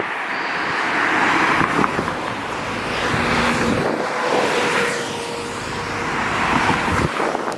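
Road traffic: vehicles driving past one after another, the tyre and engine noise swelling as each one goes by, about three times.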